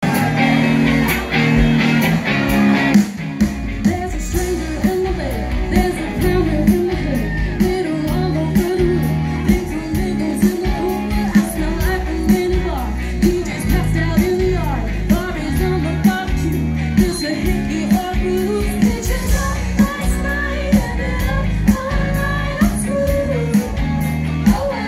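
Live pop-rock band playing with sung vocals, electric guitars and drums keeping a steady beat, heard from the audience.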